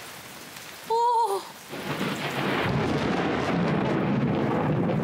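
Steady rain, then about two seconds in a long roll of thunder sets in and keeps rumbling loudly under the rain.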